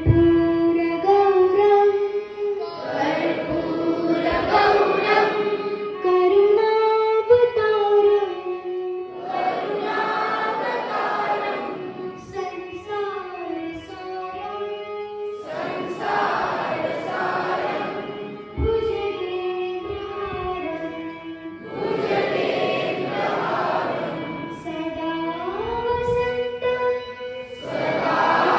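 A group of children singing together in unison, a song or prayer in phrases of a few seconds each, with a steady held tone sounding underneath.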